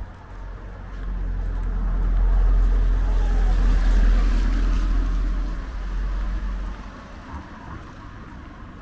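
A motor vehicle driving past, growing louder to a peak midway and then fading away, with a low engine rumble and tyre noise.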